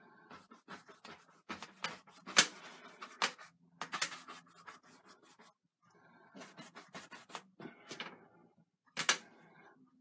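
Paint brush scrubbing and dabbing oil paint on a stretched canvas on an easel: irregular scratchy strokes and sharp taps, with the loudest taps a little over two seconds in and near the end.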